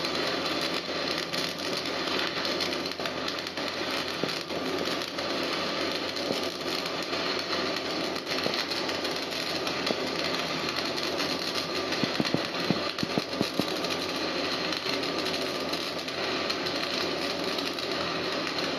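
Stick welding arc crackling and hissing steadily as the electrode burns, with a run of louder sharp pops about twelve seconds in.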